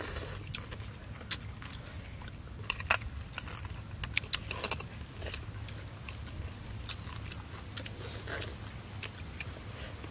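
People eating boiled shrimp with chopsticks: chewing, with scattered sharp clicks and cracks of shells and chopsticks, over a low steady rumble.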